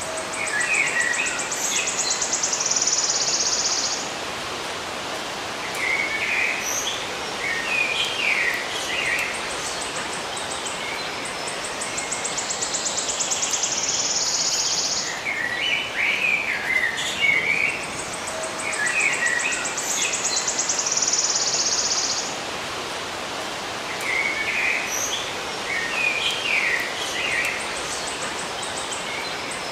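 Small birds chirping in short clusters, with a high, rapidly pulsing buzzy trill of about three to four seconds that comes back several times, over a steady outdoor hiss.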